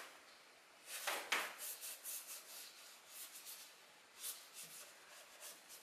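Large sumi-e ink brush swishing and rubbing across paper in a run of short, soft strokes, starting about a second in and continuing until near the end.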